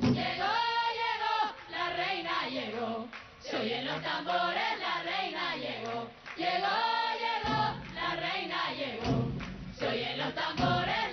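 A group of voices singing a folk song with light percussion; deep drum beats come back in about seven and a half seconds in.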